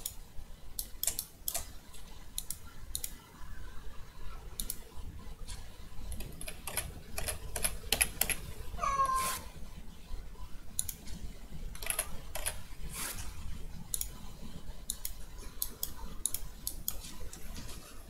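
Irregular computer keyboard and mouse clicks close by, over children's voices from outdoors as they play a chasing game. One child's drawn-out high call falls in pitch about nine seconds in.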